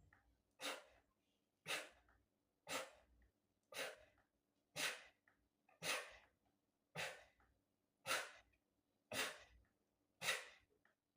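A man breathing out hard through the mouth in short, sharp puffs, about one a second, in time with push-up reps.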